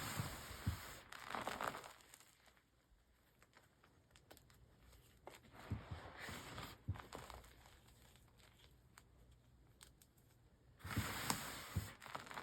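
Reformed gym chalk crushed and crumbled by hand, a crunchy, powdery crackling in three bouts: at the start, about halfway, and near the end.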